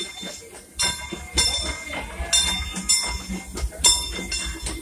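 Disneyland Railroad steam locomotive 'Fred Gurley' rolling slowly past with its passenger cars: a low rumble of wheels on rail, broken by a series of short hissing bursts with thin metallic ringing in them.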